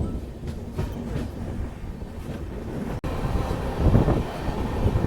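Passenger train coaches running on the track as the train pulls out of a station, a steady low rumble. It cuts out briefly about three seconds in and comes back louder, with a few knocks from the wheels.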